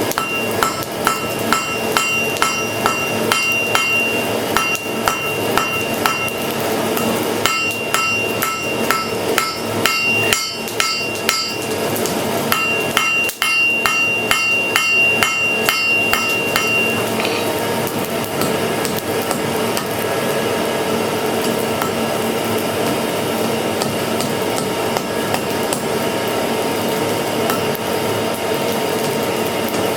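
Hand hammer striking hot steel on an anvil while forging an arrowhead, about three ringing blows a second in several runs with short pauses. The hammering stops a little past halfway, leaving a steady background noise.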